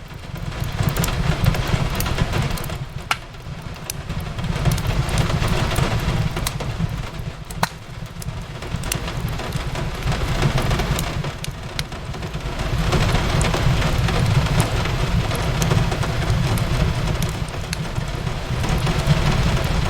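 Steady rain with a wood fire crackling over it, sharp pops scattered throughout, and a low rumble that swells and fades.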